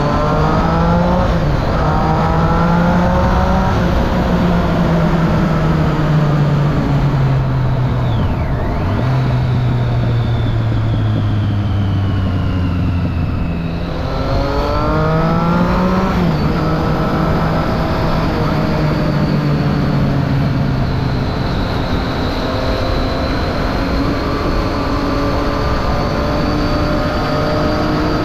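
2013 Triumph Street Triple 675's inline three-cylinder engine through a Remus Hypercone exhaust with the dB killer fitted, pulling and then cruising. The pitch climbs quickly in the first second or so and again about halfway through, with a drop around a third of the way in and steady running between, over a constant rush of road and wind noise.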